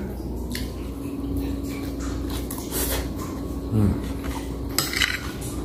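A person eating close to the microphone: chewing and mouth noises with scattered short clicks of a spoon and a louder low thump a little past the middle, over a steady low hum.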